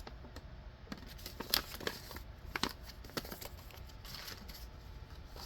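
Paper inserts and kit packaging being handled: light rustling and crinkling with scattered short clicks, a couple of them sharper, about a second and a half and two and a half seconds in.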